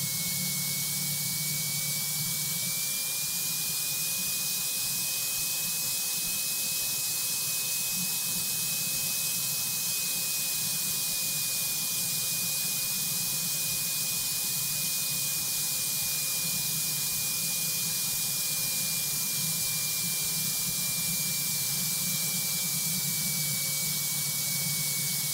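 Light training aircraft's cabin noise on final approach: a steady hiss with a low engine drone underneath and a thin high whine that drifts slightly up in pitch and back down.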